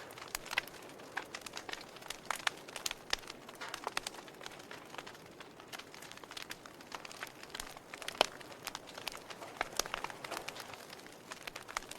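Wood fire in a fireplace crackling, with irregular sharp pops and snaps over a soft hiss; the loudest pop comes about eight seconds in.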